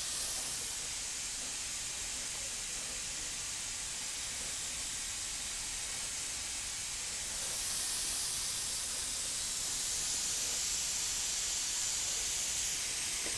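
Steady high hiss, swelling slightly in the second half, with no distinct strokes or knocks.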